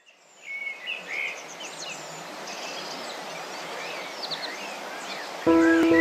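Several birds chirping and singing over a steady outdoor background hiss, fading in from silence. About five and a half seconds in, music starts with held, steady chords, much louder than the birds.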